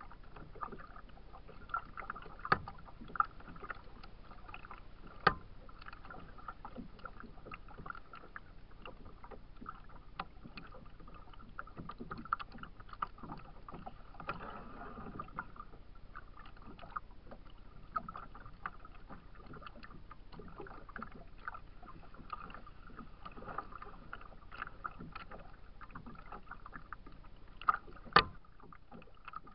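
Small waves lapping and slapping against a kayak's hull, heard through the bow-mounted camera, with a few sharp knocks against the hull; the loudest two come near the end.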